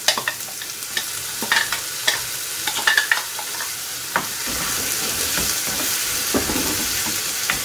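Chopped onion, carrot and capsicum sizzling in oil in a kadai while a spatula scrapes ground tomato out of a steel mixer jar and stirs, with sharp clicks and taps of the spatula against the jar and pan. The sizzle gets a little louder about halfway through.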